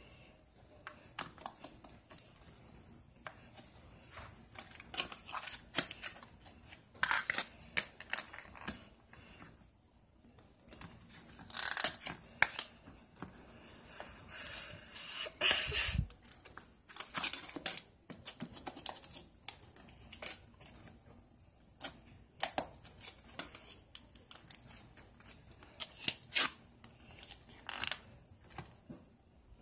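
Slime being pressed, poked and squished by fingers, giving irregular sticky clicks and pops in quick clusters, with a few knocks of a plastic slime tub against the table.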